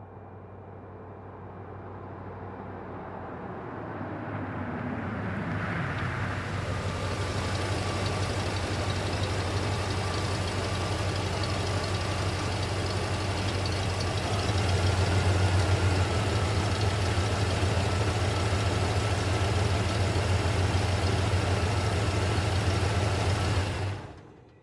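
Pickup truck engine running with a steady low note, growing louder over the first several seconds as its pitch slides down, then holding steady with a slight rise about two-thirds through. The sound cuts off abruptly near the end.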